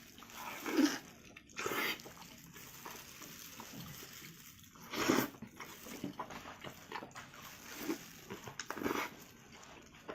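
Close-up wet eating sounds: chewing and slurping, with about five louder bursts spread through the stretch.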